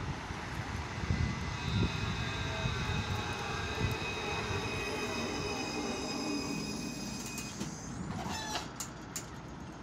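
C1-class Citadis tram pulling into a stop, rumbling along the rails with a steady high-pitched whine as it slows. A few sharp clicks come about eight seconds in as it comes to a halt at the platform.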